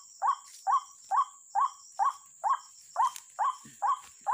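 White-breasted waterhen calls: one short rising-and-falling note repeated about twice a second at a very even pace, over a steady high insect buzz.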